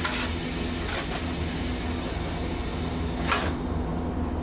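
Hiss of compressed air venting from a Hankai tram standing at a crossing, cutting off suddenly about three seconds in, over the streetcar's steady low equipment hum.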